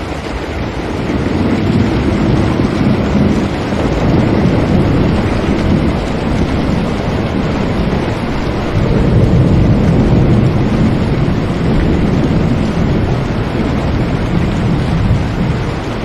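Steady heavy rain, a constant hiss with a deep rumble underneath that swells and eases a few times.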